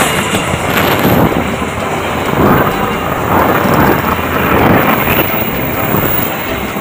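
Passenger train coaches passing at speed at close range: a loud, continuous rushing roar of steel wheels on the rails, swelling a little every second or so.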